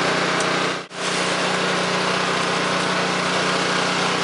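A small engine running steadily with a low, even drone that cuts out briefly about a second in, then carries on unchanged.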